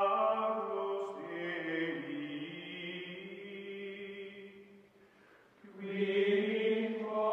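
Slow outro music of long, held chant-like chords. It fades down about five seconds in and swells back up a second later.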